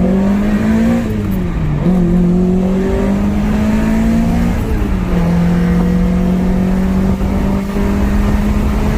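Honda Prelude's 2.2-litre H22A VTEC four-cylinder engine, at operating temperature, pulling under load while driving. Its pitch climbs slowly, dips briefly about two seconds in and again about five seconds in, then holds steady.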